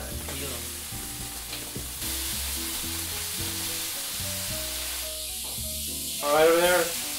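Bacon strips sizzling steadily in a hot frying pan as raw strips are laid in.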